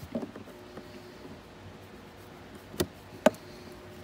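A screwdriver driving a screw into the plastic firewall of a ride-on toy car, with plastic handling noises: a few light clicks, then two sharp clicks about half a second apart near the end.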